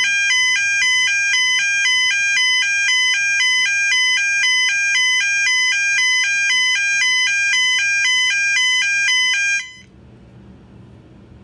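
Gentex GOS-24-15/75WR fire alarm horn, set to high volume, sounding its 800 Hz/1000 Hz alternating high-low tone: two pitches switching back and forth rapidly and evenly, very loud. It cuts off about ten seconds in.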